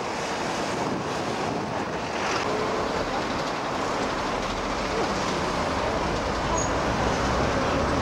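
Steady outdoor noise of wind buffeting the microphone over the hum of road traffic, with the low rumble growing stronger about halfway through.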